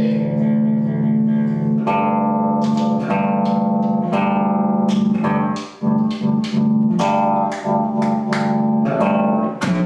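1982 Ibanez Roadster electric bass played plugged in: one note left ringing for about two seconds, then a run of plucked notes with one brief gap partway through. It is being played to check the freshly cleaned tone potentiometer and reflowed wiring.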